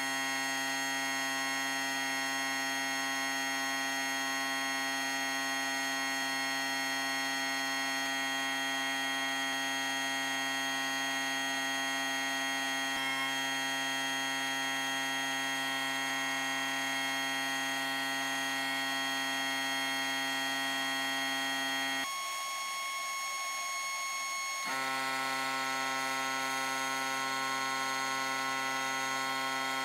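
A steady electrical hum made of many fixed tones, like a motor or mains buzz, with a faint hiss above it. For about two and a half seconds near the end the low part of the hum drops out, then it returns unchanged.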